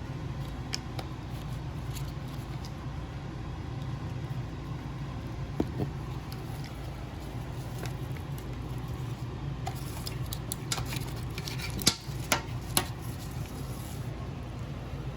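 Wiring harness being handled: its plastic connectors and wires knock and click in scattered sharp taps, thickest a few seconds from the end, over a steady low hum.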